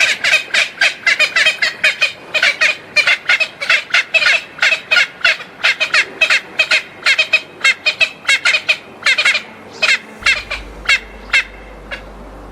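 Bird calls: a rapid series of short, repeated calls, about four a second, spacing out and stopping near the end. A low steady drone comes in about ten seconds in.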